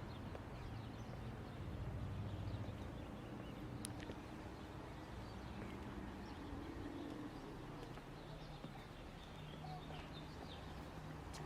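Open-air city ambience: a steady low rumble of distant traffic, with a few faint bird chirps and a single sharp click about four seconds in.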